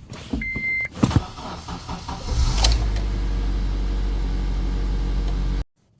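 A short electronic chime beeps and the clutch pedal clicks. About two seconds in, the manual-transmission Honda's engine cranks and catches, then runs at a steady idle. The start engaged only on the second press of the clutch, which the owner suspects is a sticky clutch-pedal start sensor.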